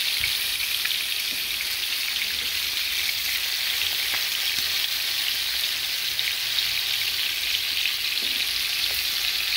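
Tuna steaks searing in hot olive oil in a pan: a steady, dense sizzle with fine crackling ticks of spattering oil.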